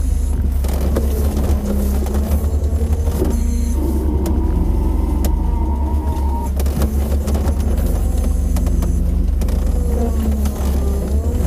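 ZMZ-406 four-cylinder engine of a GAZ Volga 3110 running steadily on freshly flashed Mikas 7.1 ECU firmware, heard from inside the cabin as a constant heavy low rumble.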